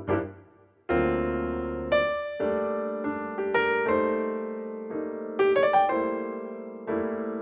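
Background music: a piano or electric piano playing a gentle melody of struck notes, each note ringing and fading as the next one begins.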